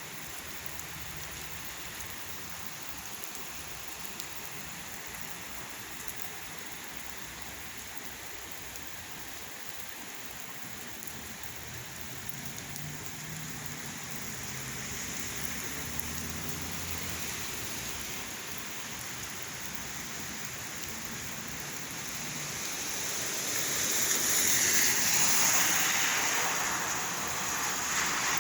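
Rain falling steadily with an even hiss, growing louder for a few seconds near the end.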